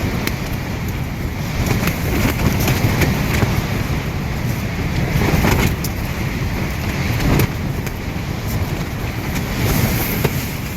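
Strong gale-force wind, 30–50 mph, buffeting a Coleman Monviso 2 backpacking tent and the microphone. The wind rumbles and surges in gusts, with scattered sharp snaps of the tent fabric.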